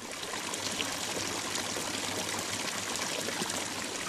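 Water pouring steadily from a spout into a pool, a continuous trickling splash.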